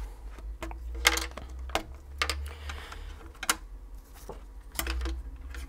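Hard plastic clicks and taps from the 3D-printed pixl-latr prototype's parts being handled on a table: the slot-in legs are pulled out and the diffuser is lifted off the frame. There are about half a dozen sharp clicks at irregular intervals.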